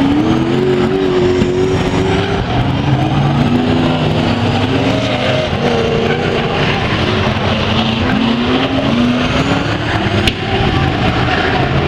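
Several speedway saloon cars racing on a dirt oval, their engines loud and revving up and down, with overlapping pitches rising and falling as the cars pass. A brief sharp click near the end.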